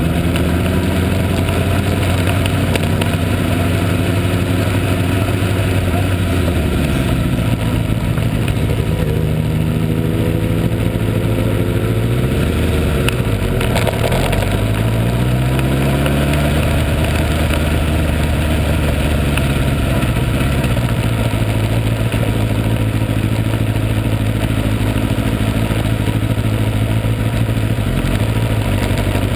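Motorcycle engine running at low speed, heard close from a camera mounted on the bike; its revs dip and rise a few times around the middle, then settle back to a steady note.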